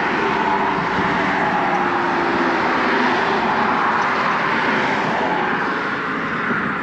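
Road traffic driving past on a bridge: a steady, continuous rush of tyre and engine noise with no break.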